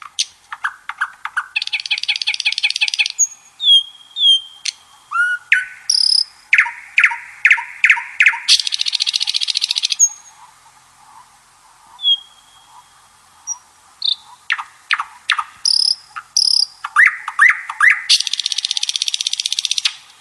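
Birds chirping and singing: a run of sharp chirps and short whistled glides, broken by long rapid trills about two seconds in, around nine seconds and near the end, with a quieter stretch in the middle.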